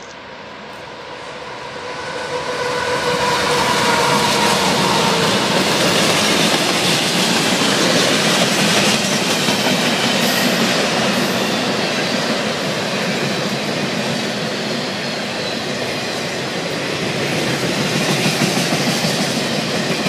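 CSX mixed freight train passing close by: the sound rises over the first few seconds as the diesel locomotive draws level, with a faint steady tone that fades out about five seconds in. Then comes a loud, steady rumble of the cars rolling past, with the wheels clattering over the rail joints.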